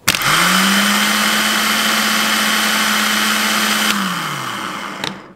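A worn marine diesel starter motor, suspected of causing the no-start, bench-tested off jumper cables: it whirs up to speed at once and spins freely with a steady hum for about four seconds. Then the power is cut and it winds down, its pitch falling, with a light click near the end.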